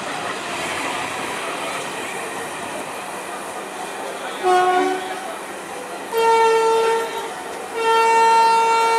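Passenger train coaches rolling along the rails as the train pulls out, then a train horn sounding three times: a short blast about four and a half seconds in, followed by two longer blasts.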